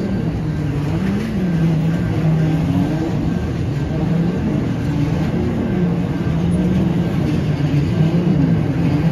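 Freight hopper wagons rolling past on the rails: a steady low droning hum from the wheels, which wavers up in pitch now and then.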